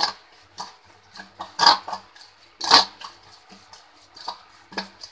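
A hand mixing dry spice masala with oil in a stainless steel bowl: irregular rubbing and scraping strokes against the metal, with two louder strokes around the middle.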